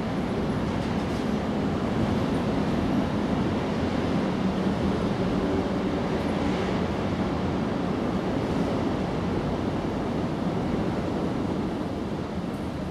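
Steady low rumbling background noise with no distinct event, easing off slightly near the end.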